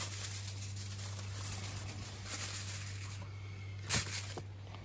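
Aluminium foil crinkling and rustling as it is handled, with one sharp click about four seconds in, over a steady low hum.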